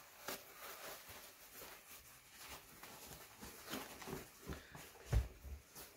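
Quilted fabric rustling and crumpling as a sewn pouch is pulled right side out through its opening, in short irregular strokes, with one louder soft thump about five seconds in.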